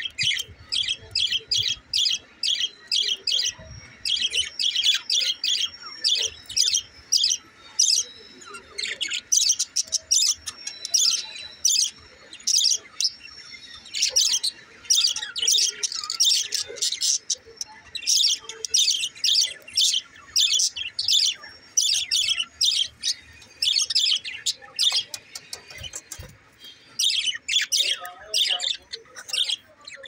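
Budgerigars chirping and warbling, a fast, unbroken stream of short high chirps with a brief lull near the end.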